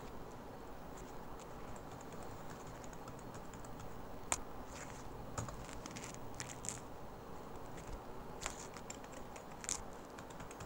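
Computer keyboard being typed on in irregular runs of light key clicks, with a few sharper, louder clicks standing out, over a faint steady hiss.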